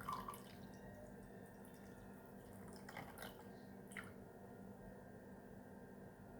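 A few faint drips over a low, steady background: one at the start and three more between about three and four seconds in.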